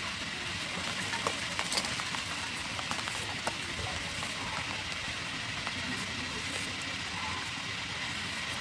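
A julienne peeler cutting strips from a fresh cucumber, heard as a run of short crisp scraping clicks, thickest in the first few seconds, over a steady hiss.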